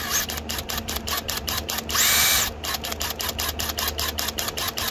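Flex FX1331 compact cordless impact driver with the trigger pulled, running free with no load. There is a rapid even ticking throughout, then about two seconds in the motor spins up, whines briefly at full speed and winds down. It is slow to respond to the trigger, a lag that may come from a built-in soft start.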